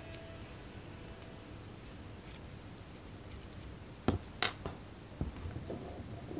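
Small handling clicks and taps of metal tweezers and small 3D-printed plastic model parts on a wooden tabletop: two sharp clicks about four seconds in, then a few lighter taps.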